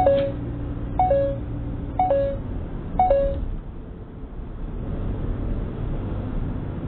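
Navigation app's warning beeps: a short two-note falling chime repeated four times about a second apart, the alert for an upcoming signal and speed enforcement camera. After the beeps stop, steady car-cabin road noise.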